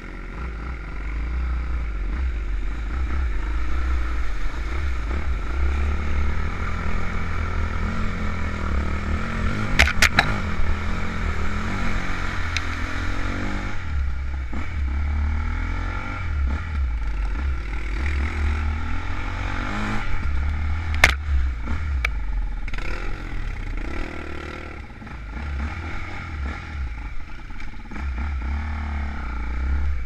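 Off-road trail motorcycle engine running and revving as it is ridden, heard from on the bike, with a heavy fluctuating low rumble underneath. A few sharp knocks come about ten seconds in and again about twenty-one seconds in.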